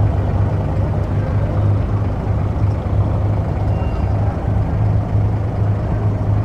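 Wooden passenger boat's engine running steadily with an even, low drone as the boat moves slowly through the water.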